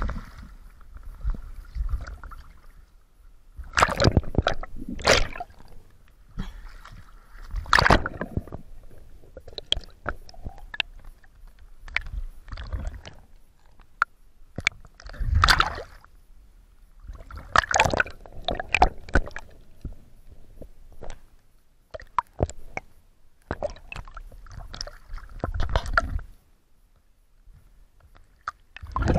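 Water splashing and sloshing in irregular bursts as a swimmer moves in and out of the water beside an inflatable boat, with gurgling when the camera dips under the surface.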